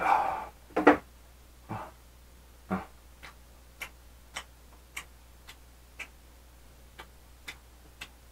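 Eating sounds from a fork working at a plastic tray, with a few louder short knocks in the first three seconds, followed by faint, even ticking about twice a second.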